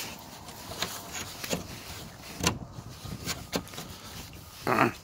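Rusty steel barrel bolt on a gate being worked by hand: a run of separate metal clicks and knocks, then a short scrape near the end as the bolt is slid.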